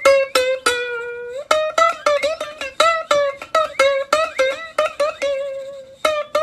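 Background music: a quick melody picked on a plucked string instrument, about three notes a second, some of them bent in pitch.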